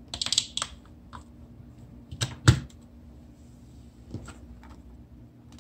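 Light plastic clicks and knocks as the heating pad's plug is pushed into the wall socket and its temperature controller is handled: a quick cluster of clicks at the start, one sharper knock about two and a half seconds in, and a couple more clicks near the end.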